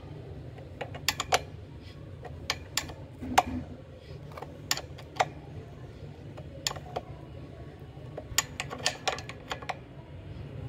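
Metal clinks and clicks of a ring spanner and an open-end spanner working a hex bolt on a water pump's pipe flange, in irregular sharp strikes over a steady low hum.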